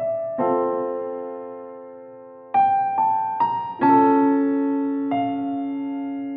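Slow background music on a piano-like keyboard: chords struck and left to ring and fade, with a short run of rising notes in the middle.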